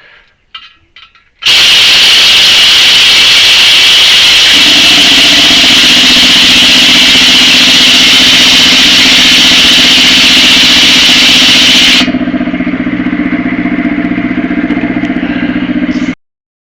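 Compressed air rushing loudly into a heavy-equipment tire to seat its bead, with a steady motor hum joining a few seconds in. The hiss drops sharply about ten seconds in, and the sound cuts off abruptly near the end.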